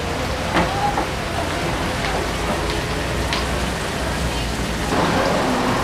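Restaurant background: indistinct voices and a few scattered clinks or knocks over a steady hiss.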